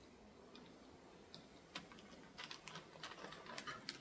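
Faint, irregular light clicks and taps, coming quicker from about two seconds in.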